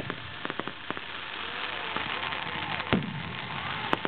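Fireworks going off: a steady scatter of sharp crackling pops over a hiss, with one loud bang about three seconds in.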